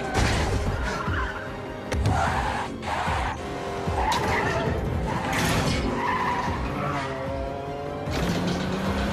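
Movie sound mix of cars racing hard: tyres squealing and skidding, engines revving up and down, over background music.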